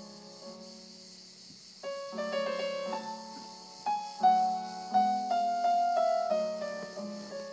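Grand piano playing with an orchestra. Soft for the first two seconds, then a louder passage of quick notes.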